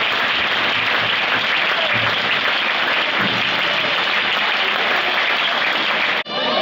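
Arena crowd applauding, a steady dense clapping that stops abruptly near the end.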